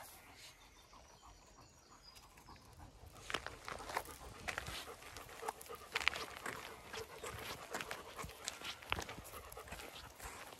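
A German Shepherd panting, with footsteps crunching on a gravel track. The footsteps become frequent about three seconds in, after a quieter start.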